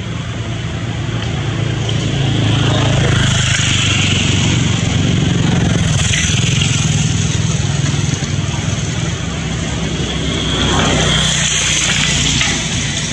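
A motor engine running steadily, growing louder about two seconds in and dropping back near the end.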